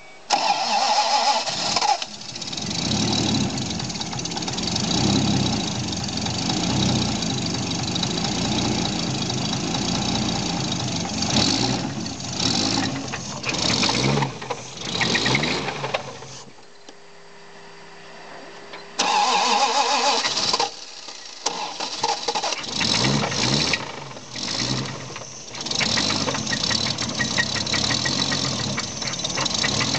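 Toyota 7M-GTE turbocharged inline-six cranked over and started, run with blips of the throttle, shut off, then cranked, restarted and revved again. The engine has a rod knock.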